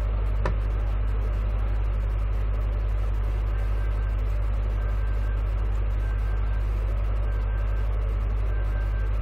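Steady low electrical hum, mains hum at 50 Hz and its overtone picked up in the recording, with a single sharp click about half a second in.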